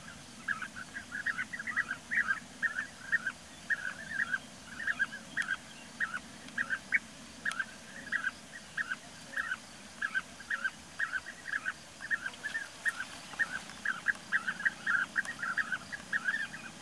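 European bee-eaters calling: a continuous string of short trilled calls, several a second.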